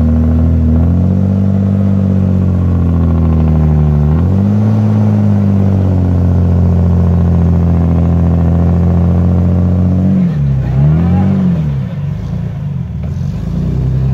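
Engine of an off-road Jeep working under load as it crawls a steep bank, held at steady revs with a brief swell in pitch about four seconds in. Near the end the revs rise and fall several times.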